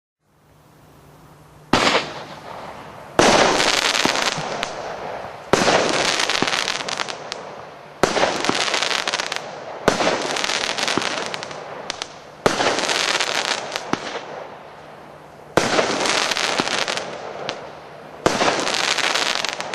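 Red Factory 'Sound of Stars' firework going off: a hiss builds, then eight loud bangs come about two to three seconds apart. Each bang is followed by a long crackling tail that slowly dies away.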